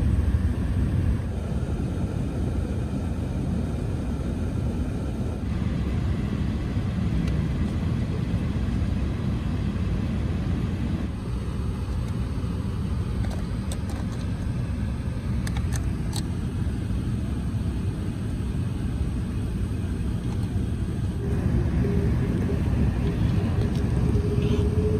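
Steady low rumble of cabin noise inside an Airbus A380 airliner taxiing. A few light clicks come around the middle, and a steady hum joins near the end, rising slightly in pitch.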